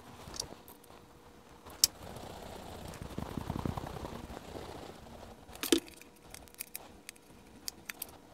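Light metal clicks and taps from a vintage J.T. Slocomb long-reach micrometer being handled and adjusted, with a soft rustle of handling in the middle. Two sharper clicks come about two seconds in and just before six seconds, and a run of lighter ticks near the end.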